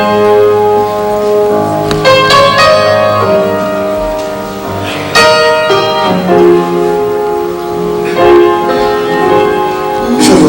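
Live gospel music: an instrumental introduction of sustained chords, with a new chord struck every two to three seconds.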